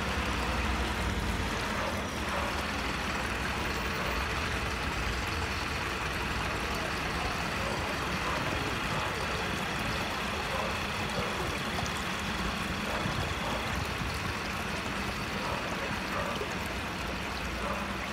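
Steady rushing of a swollen, fast-flowing river, mixed with low street traffic noise from a slow-moving van.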